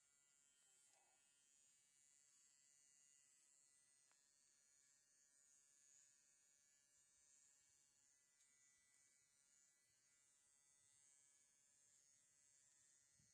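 Electric horse clippers running with a steady buzz while the horse's head is clipped.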